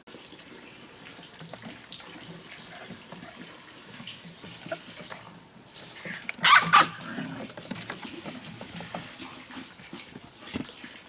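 A puppy yelps twice in quick succession about halfway through, over a low background of small rustles and knocks.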